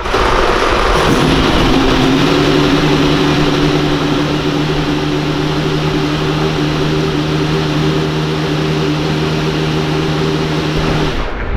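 Racing car engine running loud at a steady speed, with strong hiss over a constant engine note; it cuts off suddenly near the end.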